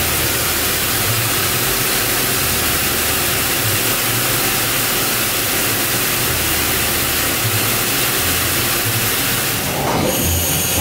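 Haas VF-4SS CNC vertical mill running, a steady hiss over a low, wavering machine hum. About ten seconds in the sound changes as coolant spray comes on: the hiss thins and a high-pitched whine appears.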